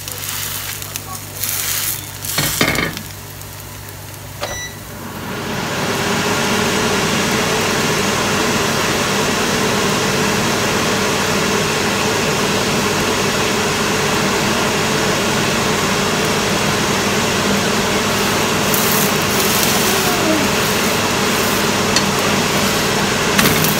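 A metal spatula scrapes a few times on a cast-iron griddle. Then, about five seconds in, a steady loud rushing noise with a low hum ramps up and holds: a kitchen extractor fan running.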